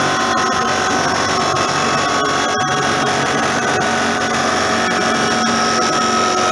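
Wood sawdust making machine running under load, its rotating blades cutting a log fed into it down to sawdust: a steady, dense grinding noise with faint steady tones over it.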